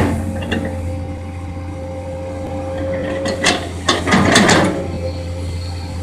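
Komatsu PC200 excavator running steadily with a low engine hum and a steady whine that fades a little past three seconds. Then come a couple of sharp knocks and a burst of scraping, clattering noise as it works.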